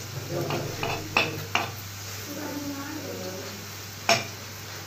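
Steel spoon scraping chopped onions off a plastic chopping board into a non-stick frying pan, with sharp clinks of the spoon against the board and pan: three about a second in, and one loud one near the end.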